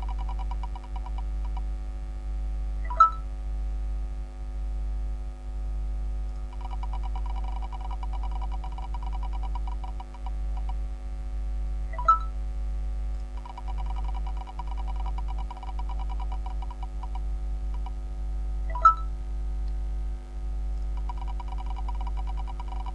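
Digital prize-wheel spinner ticking rapidly as the wheel turns, in several runs of ticks. The runs are broken by a short sharp blip each time the wheel stops on a result, about 3, 12 and 19 seconds in. A steady low hum sits underneath.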